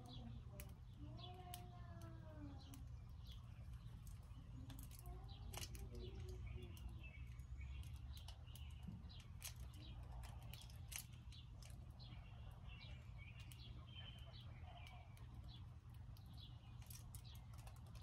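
Small songbirds at a feeder chirping and chipping, many short high chirps scattered throughout, with a few lower arched calls in the first few seconds, over a steady low rumble.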